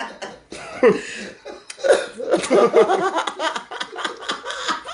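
Men laughing hard, in quick repeated bursts, with a cough about a second in.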